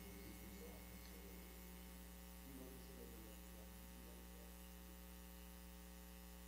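Near silence with a steady electrical hum, a low tone with several overtones, under room tone.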